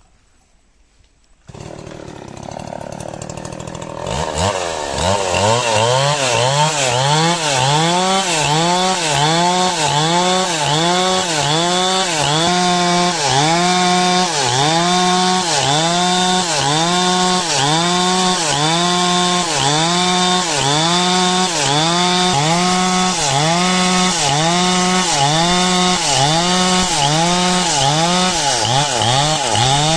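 Stihl two-stroke chainsaw comes in about a second and a half in at low speed, then opens up to full throttle about four seconds in and saws through coconut-palm trunk wood. Its engine pitch dips and recovers about once a second as the chain loads in the cut.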